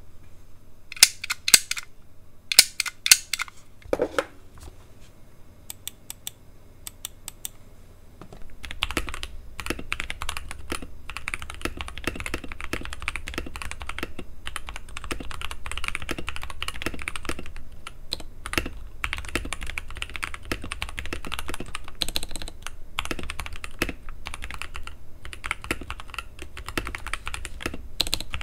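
Mechanical keyboard (TM680 / PressPlay Orbiter with Aflion Iceberg switches, tape-modded and foam- and silicone-dampened) being typed on. A few separate sharp keystrokes come first, then a deeper knock about four seconds in, and from about eight seconds in there is steady, fast continuous typing.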